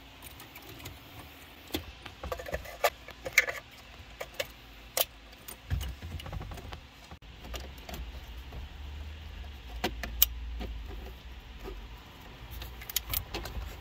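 Plastic wiring-harness connectors and the metal-cased factory head unit of a Jeep Grand Cherokee being handled behind the dash: a scatter of sharp clicks and rattles, with a low rumble through the second half.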